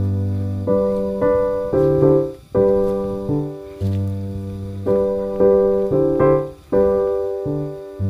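Background piano music: slow, gentle chords and notes, each struck and left to fade before the next.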